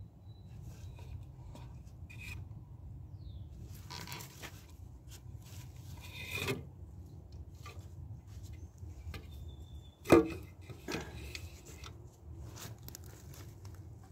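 Wooden posts knocking and scraping against a metal can as they are set in and lifted out, a few scattered knocks with the loudest about ten seconds in.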